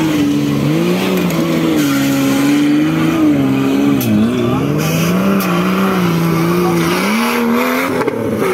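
Off-road buggy's engine revving up and down under load as it climbs through mud. Its pitch dips briefly about four seconds in and rises again near the end.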